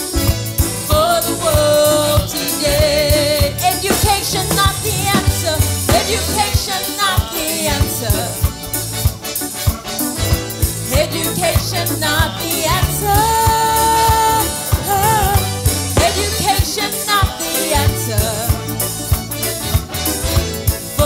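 Gospel worship song: singing over a band with a steady drum beat.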